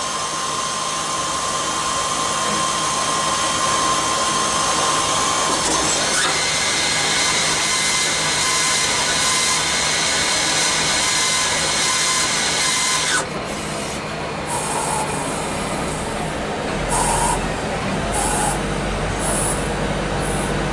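CNC lathe machining a brass fitting: a steady machine whine over cutting hiss, rising in pitch about six seconds in. A little past the middle it cuts abruptly to a lower steady running hum with a few short, high squeals.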